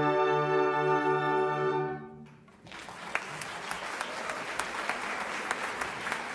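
An orchestra's final chord, brass and strings held on one steady chord, released about two seconds in. After a brief hush, the audience breaks into steady applause.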